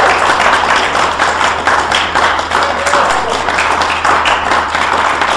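A congregation applauding: loud, dense, steady clapping from many hands.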